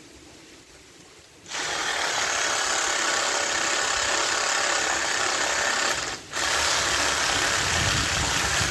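Handheld cordless power saw cutting through a mango tree branch. It starts about one and a half seconds in and runs steadily, with a brief stop about two-thirds of the way through before it starts again.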